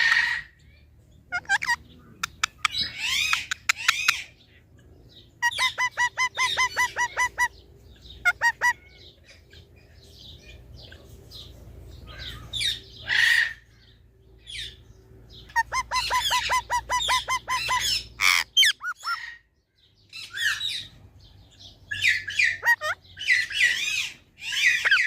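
Pet parrot calling in bursts of harsh squawks. Twice it gives a fast run of about ten repeated pitched notes a second.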